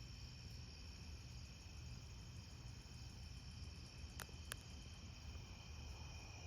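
Faint, steady chorus of night-singing crickets in a late-summer yard, over a low hum. Two sharp clicks come about four seconds in.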